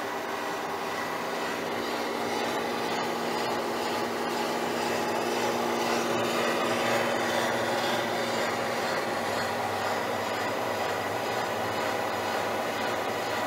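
Schaublin SV52 milling machine running, its milling cutter taking a continuous cut along a straightedge casting: a steady machine hum with several held tones under the even hiss of the cut.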